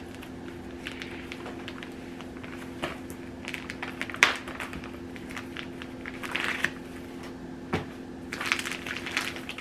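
Crinkling and rustling of plastic packaging as a sugar cookie mix and oven mitt set is handled, in short irregular bursts with a few sharp clicks, over a steady low hum.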